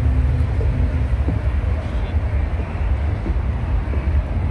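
Busy city street ambience heard while walking the sidewalk: a steady low rumble of passing traffic, with faint voices of passers-by.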